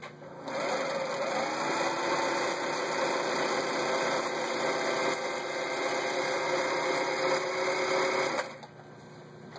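Elna TSP 72C sewing machine running a decorative design-pattern stitch: the motor comes up to speed with a rising whine about half a second in, runs steadily, then stops about eight and a half seconds in.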